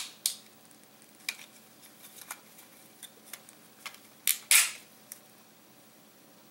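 Scattered clicks and knocks of hand tools and the plastic battery casing being handled and set down on a wooden workbench, about nine in the first five seconds, the loudest a sharp knock about four and a half seconds in.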